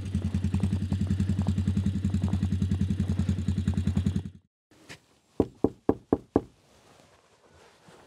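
ATV engine idling with a steady, rapid pulse, which cuts off about four seconds in. Shortly after, five quick knocks on a door.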